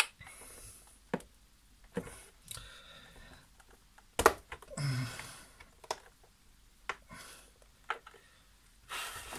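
Irregular clicks and short scrapes of a screwdriver and hands working screws out of the black plastic base of a Nespresso CitiZ coffee machine, the loudest click about four seconds in.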